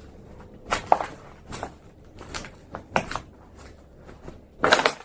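Footsteps over a debris-strewn floor: a handful of irregular steps and scuffs, the loudest near the end.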